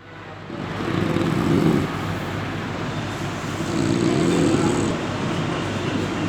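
A man snoring: two long, buzzing snores about three seconds apart, over a steady low hum.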